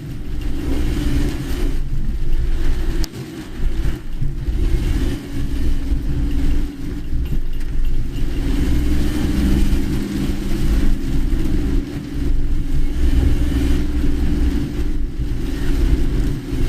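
A car driving through heavy typhoon rain, heard from inside the cabin: a steady low road and engine rumble under an even hiss of rain and tyre spray.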